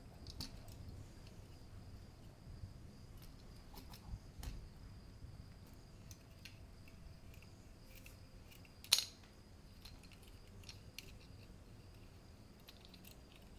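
Small clicks and taps of a die-cast miniature bicycle model's metal and plastic parts being handled and fitted by hand, with one sharper, louder click about nine seconds in.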